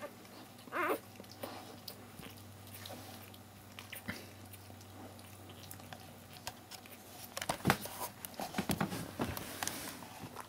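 Mother dog licking a newborn puppy: wet licking and slurping mouth sounds with scattered clicks, most frequent in a busy stretch near the end.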